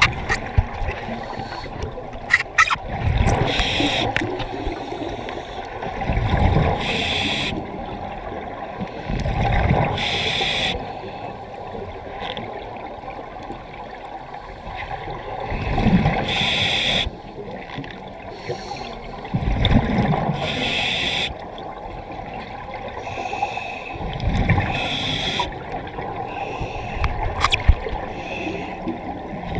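Scuba diver breathing through a regulator underwater: a hissing breath and a bubbling exhalation roughly every three to six seconds.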